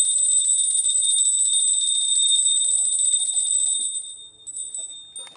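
Puja hand bell rung rapidly and continuously during aarti, a steady high ringing. It stops about four seconds in, followed by a few last scattered rings.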